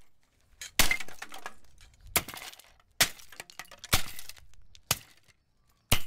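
Sledgehammer striking an old plastic Ringgrip RSFH3 fan heater six times, roughly a second apart, each blow followed by a short clatter of cracking plastic and rattling pieces as the casing breaks up.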